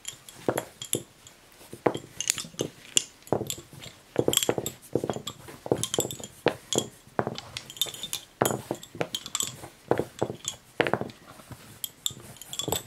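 Bobbin-lace bobbins clicking and clinking against one another and their bead spangles as they are handled, in quick irregular taps.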